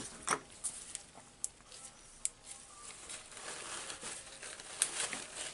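Light handling noises on a wooden workbench: a few small clicks and taps as parts are set down, then rustling as a gloved hand searches through shop rags and picks up a small tube of glue.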